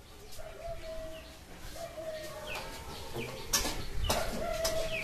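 Chickens clucking with short held calls, and small falling chirps among them. A few sharp clicks and knocks come in the second half.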